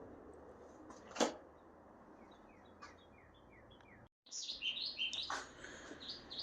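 Small birds chirping in quick, repeated short notes, faint at first and louder after a brief break just past the middle; a single sharp knock about a second in.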